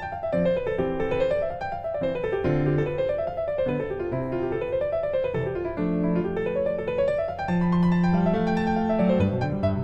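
Background piano music: quick arpeggios rising and falling over and over above held bass notes.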